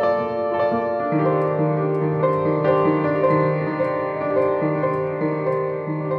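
Instrumental piano music with no singing: a slow run of sustained notes over a low bass note that comes in about a second in, growing softer near the end as the song winds down.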